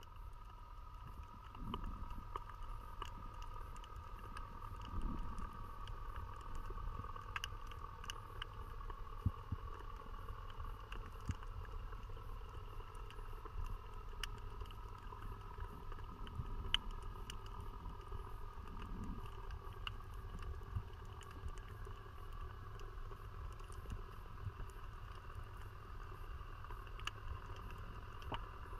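Underwater sound picked up through a camera housing: a constant low muffled rumble with a faint steady whine over it and scattered sharp clicks.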